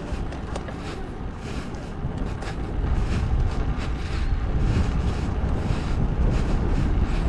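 Wind buffeting the microphone of a camera carried on a moving bicycle: a steady low rumble with a fainter rush above it, growing louder a little under three seconds in.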